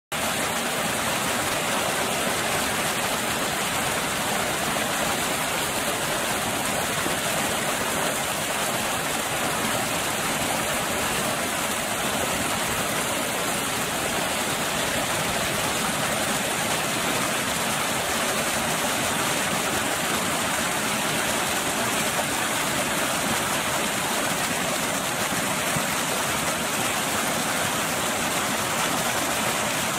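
Water pouring over a low weir and churning into foam below: a steady, unbroken rush.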